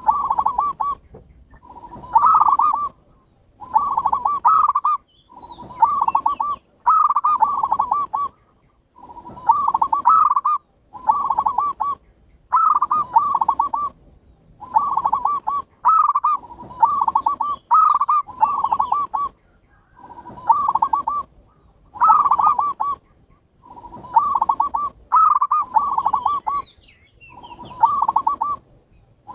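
Zebra doves (perkutut) cooing: a steady run of short, rolling, bubbling coo phrases, each about a second long, coming roughly once every one and a half seconds.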